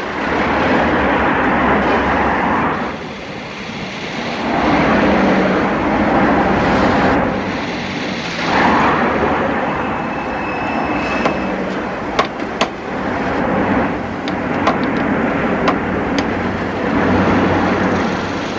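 City street traffic: vehicles driving past one after another, the noise swelling and fading with each pass, with a few sharp clicks in the second half.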